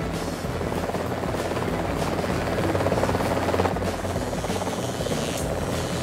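Helicopter rotor blades chopping rapidly and steadily as it lifts off.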